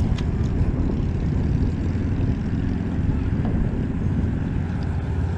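A steady low engine drone that holds an even level throughout.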